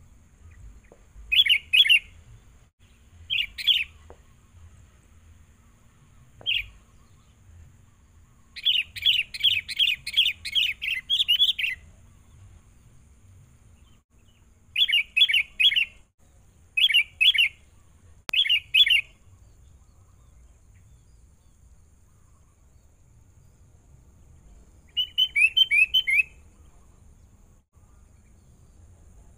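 Sooty-headed bulbul calling in short bursts of quick, bright chirping notes, some single phrases and one longer run of about three seconds near the middle; a decoy calling to lure wild bulbuls in.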